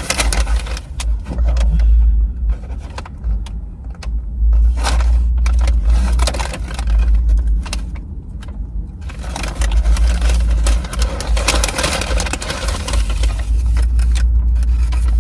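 Paper food wrappers and bags rustling and crinkling as they are handled and opened, many short crackles over a steady low rumble.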